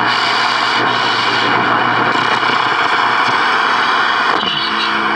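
General Electric World Monitor transistor radio hissing with loud shortwave static between stations. About four and a half seconds in, as the band switch is turned, the static changes and a few steady tones come in.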